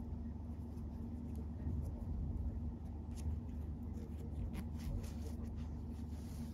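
Nylon paracord rustling and scraping against fingers and the knotted collar as it is drawn into a square knot, a few soft rustles over a steady low hum.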